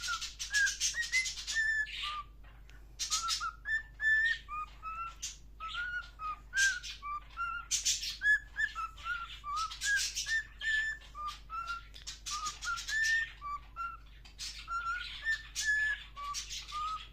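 Pet cockatiel whistling short notes that glide up and down, over and over, mixed with bursts of scratchy chattering.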